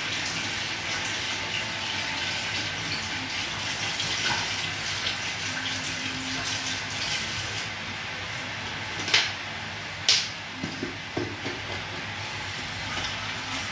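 Water poured from a plastic bottle into a stainless steel stockpot of sauce, a steady splashing pour that eases off about eight seconds in. Then two sharp clacks and a few lighter knocks follow close together.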